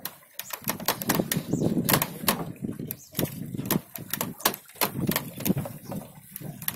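Irregular sharp clicks and knocks, several a second, over a steady low rumble of wind and sea, on a small wooden boat while a fish is fought on a bent jigging rod and reel.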